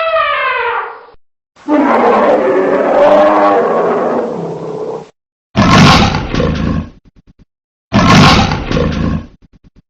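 Big cat roaring: a long rough growl, then two loud separate roars. In the first second the tail end of a different, pitched call fades out.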